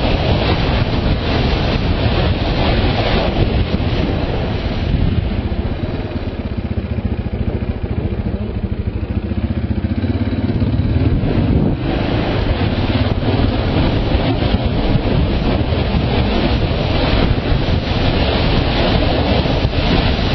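Motorcycle riding at speed, its engine running under heavy wind buffeting on the camera microphone. About midway the wind eases for several seconds and the engine note comes through more clearly.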